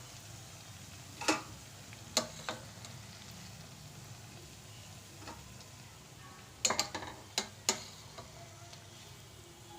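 Flattened-rice fritters deep-frying in hot oil with a steady low sizzle. A utensil knocks sharply against the pan about six times, in two short groups, as fried pieces are lifted out.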